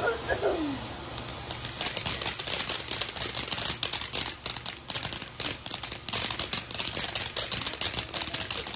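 Consumer firework crackling: a dense, rapid run of small sharp pops that starts about a second in and keeps going.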